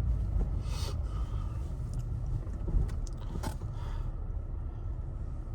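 Car running with a steady low rumble heard from inside the cabin, with a few short rustling or scraping noises about a second in and again near the middle.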